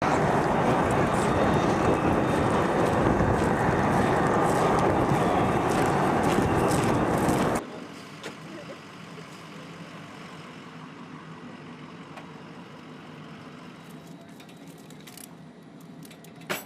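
Loud, steady jet engine noise that cuts off suddenly about seven and a half seconds in, giving way to a much quieter steady hum with a single click near the end.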